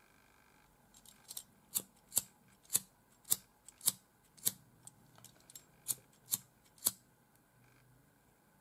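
Handheld lighter clicked over and over to light it: about a dozen sharp clicks, roughly two a second, starting about a second in and stopping about a second before the end.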